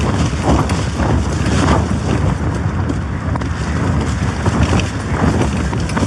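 Gale-force storm wind buffeting a Hilleberg solo tent, the tent fabric shaking and flapping loudly in irregular gusts.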